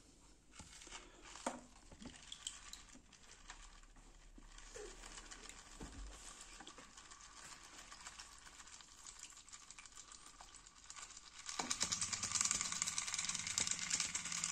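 Aquarium filter parts being washed by hand in a basin of water: soft splashes and small plastic clicks as the bio-ball cartridge is shaken, then about twelve seconds in a much louder, steady swishing of water as the foam sponge is worked under the surface.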